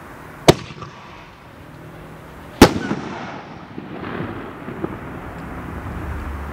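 Sir Lancelot consumer firework: two sharp bangs about two seconds apart as its shells burst in the sky, the second followed by a trailing scatter of crackle as the sparks spread.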